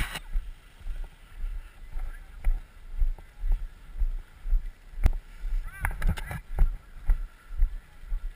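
Footsteps of a person walking over dry grass and sandy ground, a dull thud about twice a second, picked up through the action camera he is carrying, with an occasional sharp click of gear.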